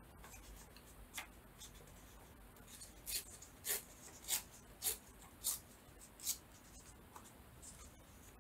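Paper being rubbed in short scratchy strokes: one about a second in, then six evenly spaced strokes, a little under two a second, from about three seconds in.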